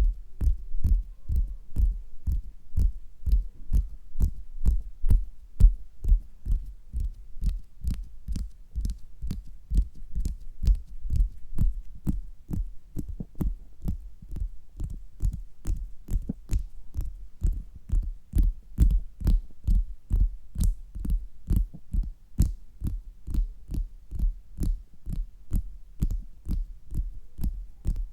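Fingers tapping on a stomach, heard through a stethoscope: a steady run of deep thumps, about two to three a second, each with a faint click on top.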